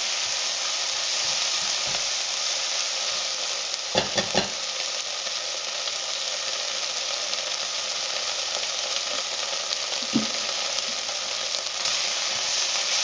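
Sliced onions with garlic-ginger paste sizzling in hot ghee in a saucepan while a silicone spatula stirs them. There are three quick knocks about four seconds in and another near ten seconds.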